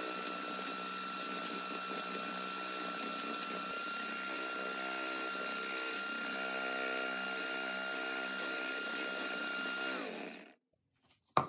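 Electric hand mixer running steadily with a whine, its beaters whipping cream and sugar in a glass bowl as it thickens and fills with air; about ten seconds in the motor winds down and stops.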